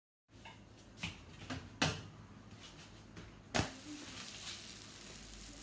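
Faint kitchen clatter: a few separate knocks of utensils and cookware being handled, the loudest about three and a half seconds in, over quiet room tone.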